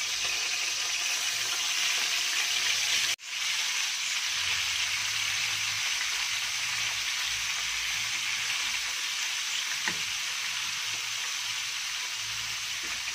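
Sliced beef tenderloin searing in hot olive oil in a frying pan: a steady sizzle as the meat browns. The sound cuts out for an instant about three seconds in.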